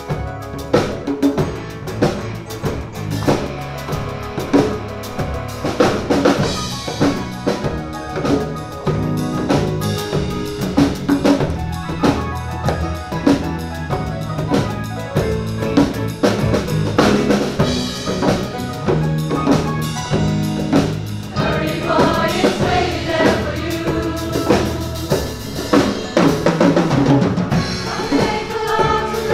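Live band music with a steady drum-kit beat of bass drum and snare, played as an instrumental passage of the song.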